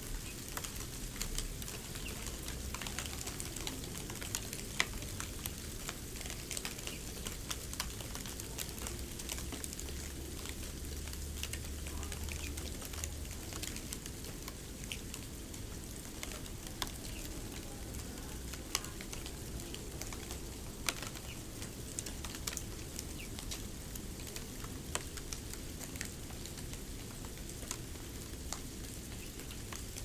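Snow crackling: a steady fine hiss dotted with many small, sharp crackles and clicks, with a faint low rumble for a few seconds in the middle.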